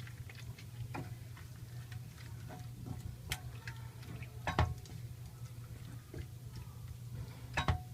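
Kitchen utensils clicking and knocking against a cooking pan as cream is added to chicken and mushrooms, with a few sharper knocks, over a steady low hum.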